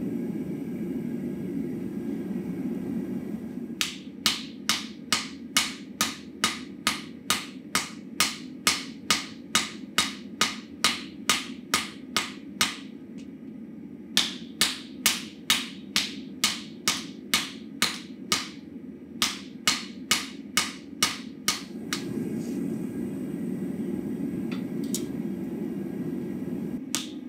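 Hand hammer striking hot steel on an anvil in a steady rhythm of about three blows a second, forging the axe body: two long runs of blows with a short pause between them. A steady low hum runs underneath and is plainest before and after the hammering.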